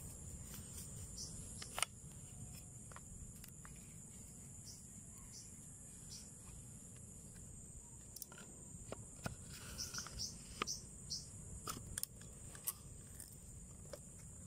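Faint, steady high-pitched insect chorus, with scattered sharp clicks and a few short chirps.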